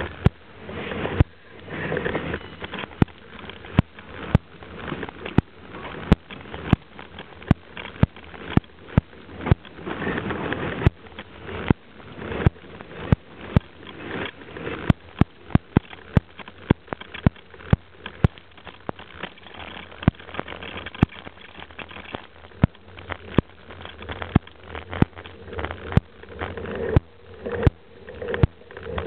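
Bike-mounted camera jolted while riding: repeated sharp knocks and clicks, irregular at about one to two a second, over a steady rushing noise.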